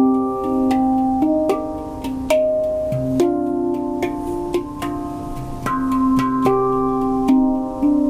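Handpan played by hand: a steady run of struck notes that ring on and overlap, with a low note sounding again and again beneath the melody.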